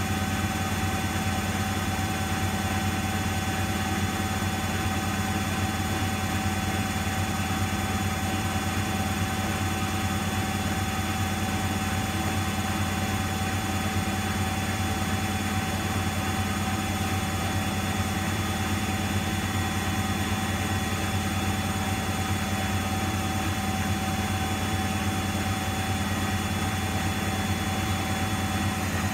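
Miele front-loading washing machine running at a steady speed: a steady motor whine at one pitch over a low drum hum.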